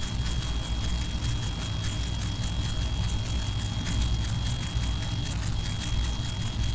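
Steady low rumble and hum of background noise in a large prayer hall, with a constant thin high-pitched whine and a faint crackle, and no speech.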